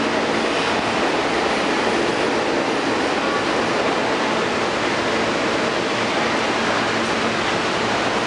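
Steady, even background noise of an underground subway station, with a faint steady hum underneath.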